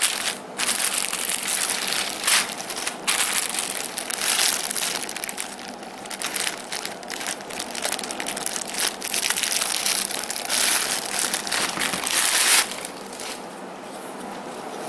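Thin clear plastic packaging bag crinkling and crackling as it is handled and cut open with scissors. The crackling is dense with many sharp strokes, then dies down near the end.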